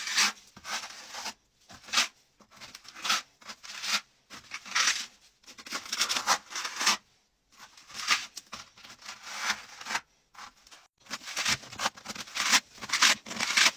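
Steel plastering spatula scraping and smearing wet cement mortar onto a brick stove: a run of short scraping strokes, one or two a second, with brief pauses between groups.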